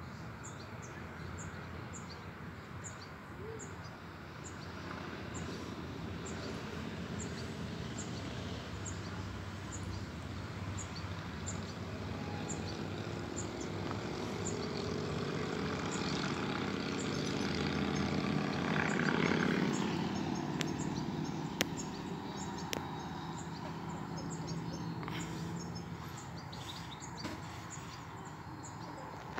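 Outdoor ambience: a short, high chirp repeats a little faster than once a second, under a low rumble that slowly swells to a peak about two-thirds of the way through and then fades away.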